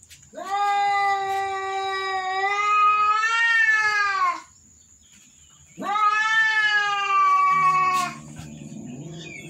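Domestic cat caterwauling: two long, drawn-out yowls, the first about four seconds long and falling in pitch at its end, the second shorter. A lower, quieter sound follows near the end. It is the defensive yowling of a cat afraid of a cat strange to it.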